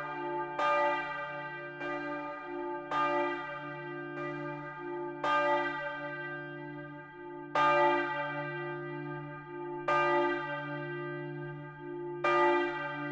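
Full peal of four bronze church bells (tuned d', f', g', b'), cast in 1950 by Junker of Brilon, swinging and striking in an irregular, overlapping pattern, heard close up inside the bell tower. A strike lands every one to two seconds, and a deep hum rings on steadily beneath them.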